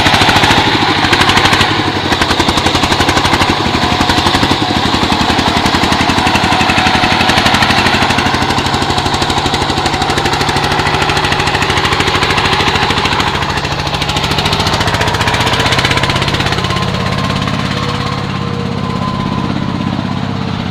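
Single-cylinder diesel engine of a công nông farm truck running steadily with a fast, even chugging, a little quieter near the end.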